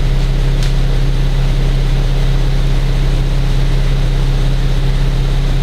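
Stock exhaust of a nearly new 2015 Infiniti Q70 with the 3.7-litre V6, idling steadily with an even, deep drone.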